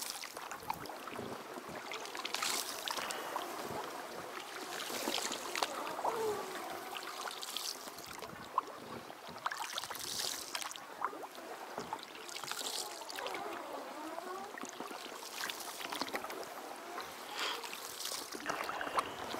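Oars of an inflatable boat dipping and pulling through shallow reedy water, with splashing and dripping at each stroke, about every two to three seconds.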